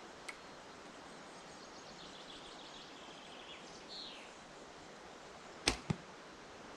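A shot from a 50–55 lb compact survival bow with fold-out limbs: a sharp snap of the string on release, then a second, smaller crack about a fifth of a second later.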